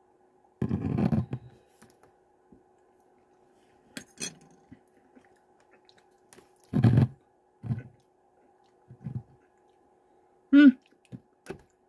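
Hands working the cap of a small hot sauce bottle: scattered clicks, knocks and handling rustles, the loudest about a second in, about seven seconds in and just before the end, where a brief pitched squeak-like sound stands out. A faint steady hum runs underneath.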